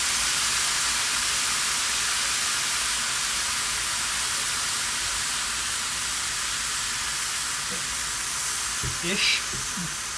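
Kumara and red onion stir-fry sizzling in a hot pan as about a cup of orange juice goes in. The sizzle is a steady hiss that slowly eases.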